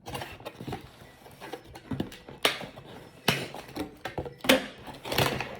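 A slime kit's packaging being opened and handled by hand: an uneven rustling and scraping with several sharp clunks and crinkles, the loudest near the middle and near the end.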